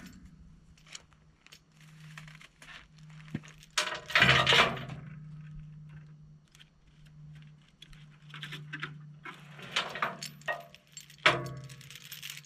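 Heavy steel chain clinking and rattling, with two louder clanks, one about four seconds in and one near the end, over a steady low hum.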